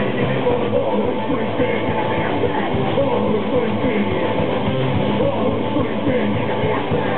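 A hardcore punk band playing loud and fast: distorted electric guitars, bass guitar and a drum kit, unbroken throughout.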